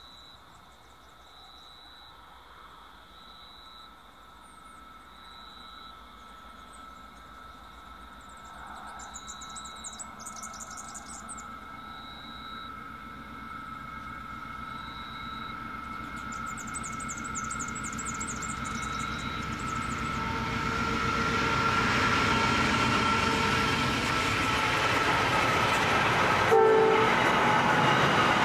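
Freight train hauled by two NR class diesel-electric locomotives approaching and growing steadily louder, then passing close by near the end with a sharp knock, after which the wagons rumble past. It is a long train of empty container wagons.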